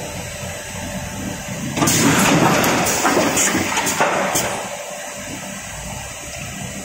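Automatic steel coil cut-to-length line running with a steady mechanical hum. About two seconds in it gets louder for around two and a half seconds, with metallic scraping and a few sharp clicks, as the fed sheet of cold rolled steel is cleared off the stacker; it then drops back to the steady running noise while the next sheet feeds.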